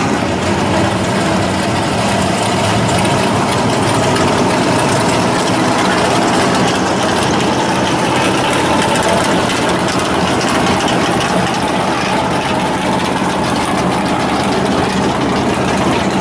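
Loud, steady idling of drag race car engines as the cars roll slowly past at low speed.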